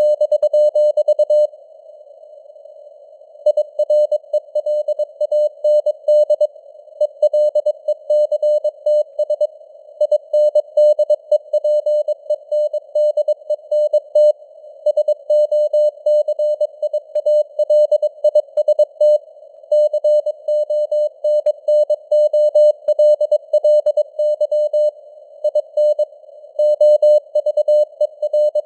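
Morse code (CW) sent at 22 words per minute: a single steady tone keyed in quick dots and dashes, over faint hiss as of simulated radio noise. There is a pause of about two seconds near the start, then sending resumes.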